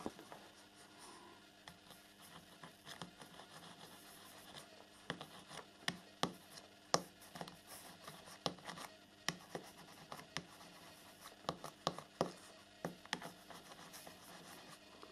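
Soldering iron tip scraping and tapping across copper-clad circuit-board ties as they are tinned with solder: faint, irregular scratches and clicks, more frequent in the second half.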